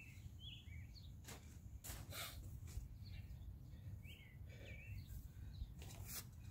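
Small birds chirping in short twittering phrases, near the start and again about four seconds in, over a low steady outdoor rumble. A few brief rustles of nylon tent fabric and footsteps on grass, the loudest about two seconds in and near the end.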